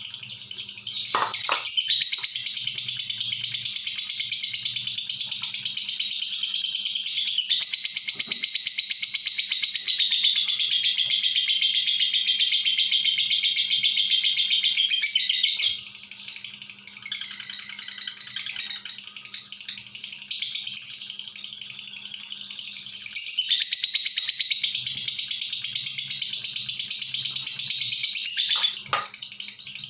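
Lovebird doing ngekek, its long, rapid, high-pitched rattling chatter held almost without pause. It weakens and breaks up a little past the middle, then comes back at full strength for the last stretch.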